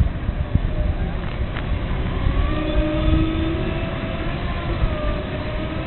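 A vehicle's motor running, with a steady whine that wavers slightly in pitch from about two seconds in, over a constant low rumble.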